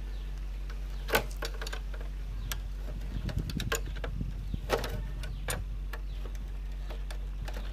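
Small metallic clicks and taps of a hand tool working against the steel fork tube and clamp of a motorcycle's front suspension. A sharper click comes about a second in and again near five seconds, with a run of lighter rattling clicks between.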